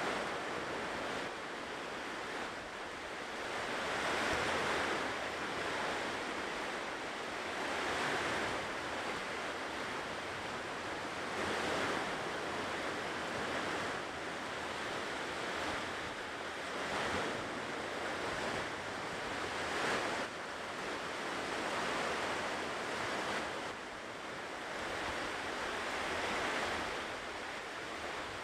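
Ocean waves breaking and washing on a shore, the surf swelling every few seconds over a steady rush of water.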